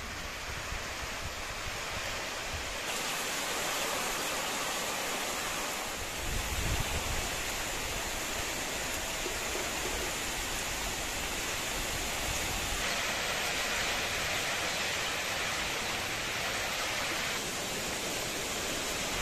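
Steady rain falling, an even hiss that gets a little louder about three seconds in.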